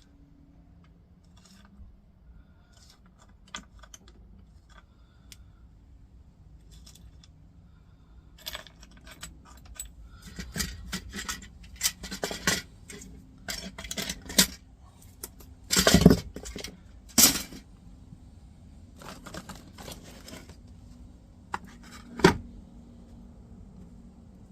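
Small brass scrap pieces clinking and rattling against each other as they are handled and gathered. The clinks are scattered at first and come thicker from about a third of the way in, with a few sharper knocks, two together about two-thirds through and one near the end.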